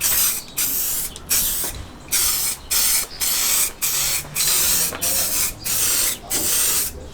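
Primer being sprayed in a dozen or so short hissing bursts, about two a second, each under half a second long.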